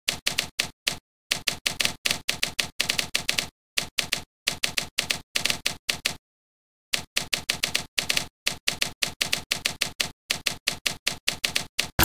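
Recorded typewriter keystrokes played by a software typewriter simulator modelled on a portable Remington, one strike per typed key, in quick runs of several strokes a second. The runs are broken by short pauses, one longer about halfway, with dead silence between them.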